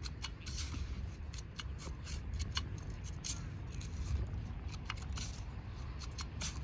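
Short shovel digging into dry beach sand: irregular gritty scrapes and soft thuds as sand is dug out and tossed aside.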